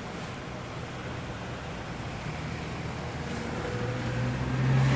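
A motor vehicle's engine hum over steady street noise, growing louder toward the end.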